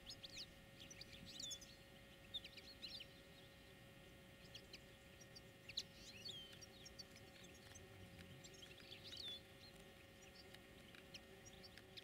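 Small songbirds chirping and twittering in quick, scattered calls, over a faint steady hum.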